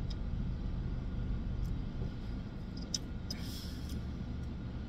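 Steady low rumble inside a car cabin, with a few faint clicks of a man sipping and swallowing soda from a plastic bottle, and a short breathy exhale about three and a half seconds in.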